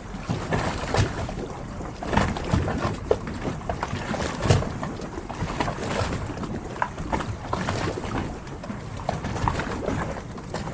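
Harbour water lapping and splashing against the hulls of moored yachts, with irregular slaps and knocks, the loudest about four and a half seconds in.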